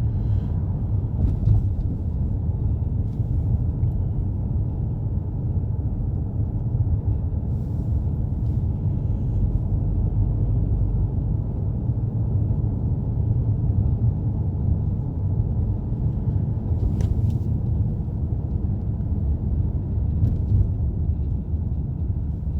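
Steady low rumble of a car on the move, road and engine noise heard from inside the cabin, with a few faint clicks.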